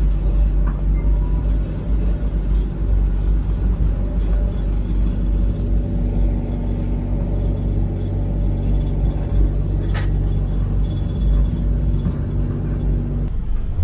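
Passenger train heard from inside its compartment: a steady low rumble with a steady hum, and a single click about ten seconds in.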